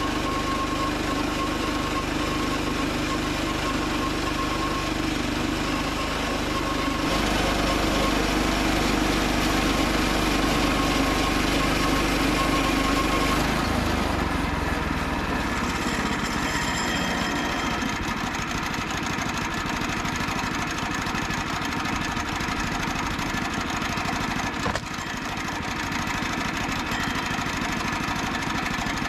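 Gas engine of a portable bandsaw mill running steadily while the blade makes a slabbing cut through a spalted maple log. The engine note shifts about seven seconds in and again about halfway through.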